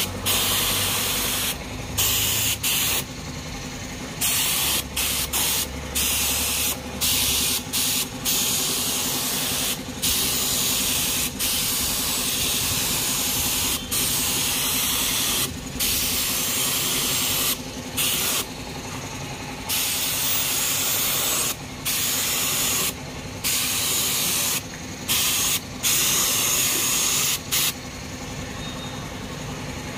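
Spray gun hissing as paint is sprayed onto a mag wheel. It sprays in bursts of a few seconds with many short breaks as the trigger is released, over a steady low hum.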